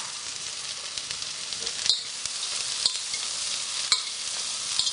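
Cauliflower, mushrooms and bean sprouts sizzling hard in a stainless steel wok over full gas. An ordinary kitchen spoon stirs them, knocking against the pan about once a second, four times from about two seconds in.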